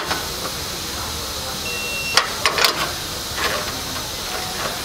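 Digital torque wrench giving one short, high, steady beep as a bolt reaches its set torque of about 100 ft-lb. A few sharp metal clicks and knocks follow as the wrench and socket are worked on the bolts, over a steady hiss of shop noise.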